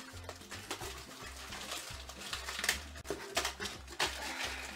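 Scissors snipping and plastic wrap and cardboard being handled inside a shipping box: irregular short clicks and rustles. Quiet background music with a repeating bass line runs underneath.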